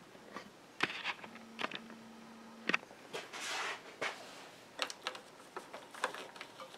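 Light handling noises as rubber rings and their plastic bags are handled and a ring is stretched over the posts of a pinball slingshot: scattered soft clicks and taps about a second apart, with a brief rustle a little past three seconds in.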